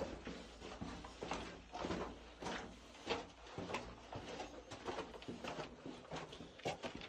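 Footsteps of a hiker walking on a gravelly rock path inside a rock tunnel, about two steps a second.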